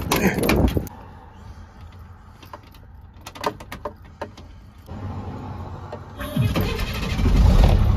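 Keys jangling and a door lock clicking, then a few clicks as the key goes into the ignition. About six seconds in, the 26-foot box truck's diesel engine starts and settles into a steady low idle rumble.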